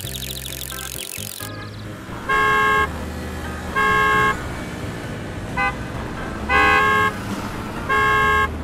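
A car horn honking in four long blasts about a second and a half apart, with one short toot between the second and third. A hiss cuts off about a second and a half in, before the honking starts.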